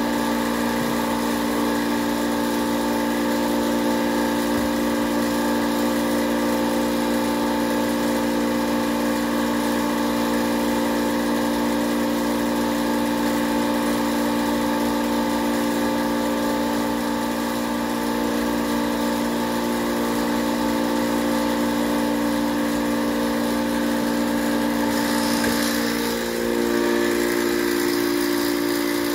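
Small electric air compressor running steadily as it pumps biogas out of an inner tube into a propane tank. Its hum steps up slightly in pitch about three-quarters of the way through, and a hiss comes in at the same time.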